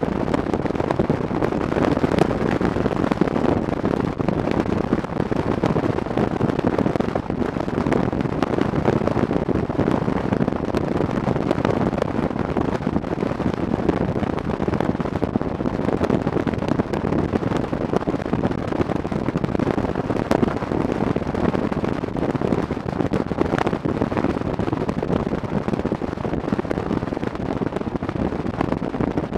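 Wind buffeting the microphone of a camera on a moving motorcycle, a steady dense rush with rapid flutter, over the motorcycle's running and road noise.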